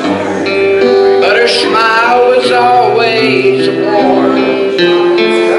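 Live gospel music: held chords on an electronic keyboard, with a man's singing voice coming in about a second in and dropping out around four seconds.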